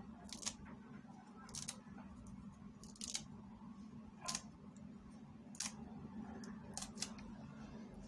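Light, sharp knocks of a spoon and pestle against a wooden som tam mortar as leafy greens are mixed into the salad, coming about once a second at uneven intervals, over a steady low hum.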